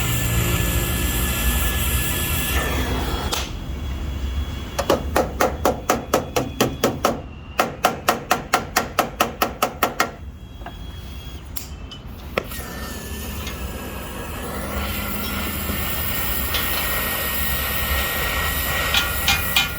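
Rapid, evenly spaced hammer blows, about three to four a second, in two runs a few seconds in and again near the end, over a steady background noise.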